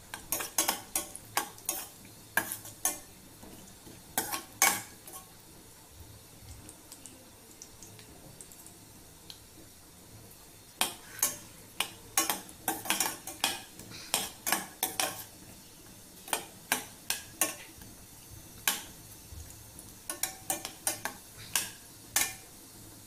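Metal spoon stirring almonds and raisins frying in ghee in a steel saucepan, clinking and scraping against the pan in clusters of sharp clicks, with a quieter pause of several seconds near the middle. A faint sizzle of the hot ghee runs underneath.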